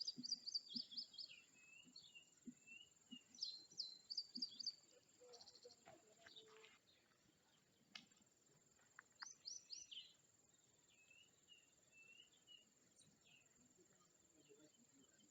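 Faint birdsong: small birds chirping and trilling in short clusters of quick high notes, about three bursts, with quiet gaps between them.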